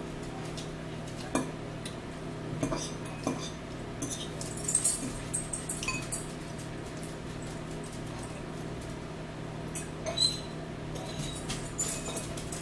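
Metal forks clinking and scraping against bowls of noodles while eating: scattered sharp clinks, busiest from about four to six seconds in, over a steady low hum.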